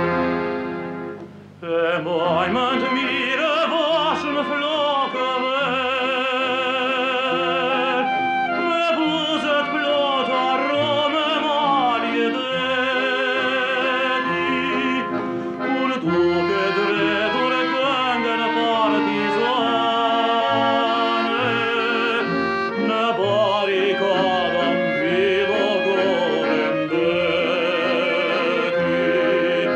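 A tenor sings an Albanian partisan song in an operatic style with strong vibrato, accompanied by accordion. The music drops briefly just after the start, and then the voice comes in and carries on.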